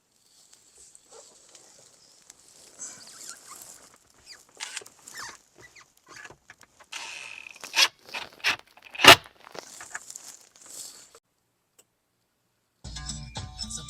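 Hands working plastic dash trim and a car stereo into the dashboard: scraping and rustling with scattered clicks, and one sharp knock about nine seconds in. Near the end, music starts playing from the newly installed car stereo.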